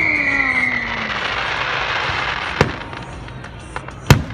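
Aerial fireworks. A high whistle slides down in pitch and fades in about the first second over a crackling hiss. Then comes a sharp crack, and near the end the loud bang of a shell bursting.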